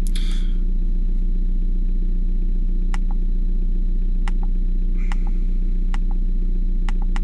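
Renault Megane's K9K 1.5 dCi diesel engine idling steadily at about 900 rpm. From about three seconds in, a few sharp clicks, some in quick pairs, from the diagnostic scanner's buttons as the live-data list is scrolled down.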